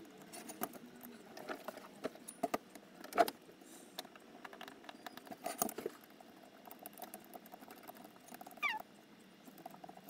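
Small screws being driven with a hand screwdriver into an aluminium servo bracket: scattered light clicks and taps of metal parts, with a short squeak near the end.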